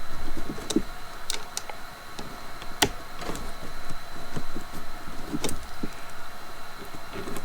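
Scattered clicks and light knocks of trimmer parts being handled and fitted together during assembly, with one sharper click about three seconds in.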